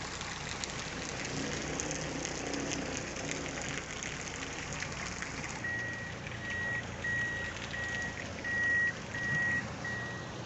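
Steady hiss of wet street and traffic noise with a vehicle engine running low. About halfway through, a vehicle's electronic warning beeper starts, one high tone repeating about twice a second.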